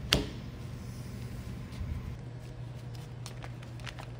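Gloved hands working a mechanical seal onto a metal pump shaft: one sharp click just after the start, then a few faint light clicks near the end, over a steady low hum.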